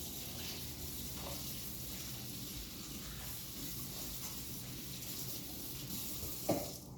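Kitchen tap running in a steady hiss of water, shut off near the end, with a light knock just before it stops.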